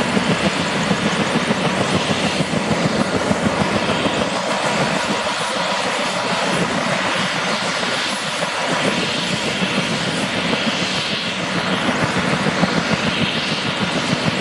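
Bell 205A-1 (civil UH-1H Huey) helicopter running on the ground with its rotors turning: a steady, rapid beat of the main rotor over the single turbine engine, with no change in pitch.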